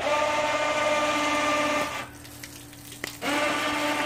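Battery-powered electric winch motors running in two steady whining bursts of about two seconds each, about a second apart, lowering the cart's hanging load one side at a time.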